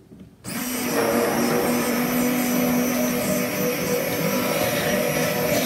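Stick blender (immersion blender) switched on about half a second in and running steadily with a hum, blending thickened, separated milk kefir smooth in a jar.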